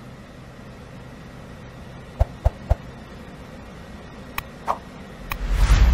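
Subscribe-button animation sound effects: three quick sharp clicks about two seconds in, two more clicks a couple of seconds later, then a loud whoosh near the end, over a steady low background hum.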